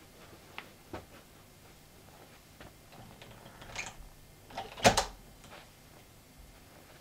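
Leather shoes shifting on carpet: faint shuffles and small clicks, then a sharp double knock about five seconds in.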